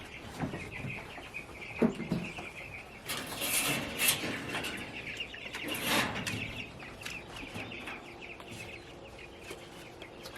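Young chickens peeping with many short high chirps, over rustling and a few louder scuffs and knocks.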